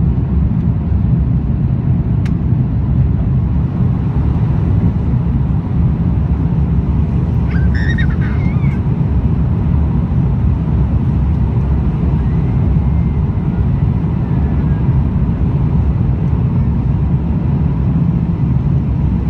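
Cabin noise of an Airbus A330-300 at takeoff power: a steady, loud low roar of the engines and airflow, heard from a seat over the wing as the jet lifts off and climbs. A brief higher-pitched sound comes about eight seconds in.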